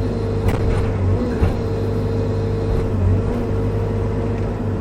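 Bobcat E55 mini excavator's diesel engine running steadily, heard from inside the cab, with a steady whine that dips briefly a few times as the machine works. Two sharp knocks come about half a second and about a second and a half in.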